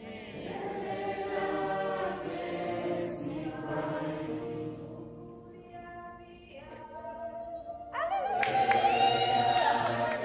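A choir singing a hymn in long held notes, growing suddenly louder about eight seconds in.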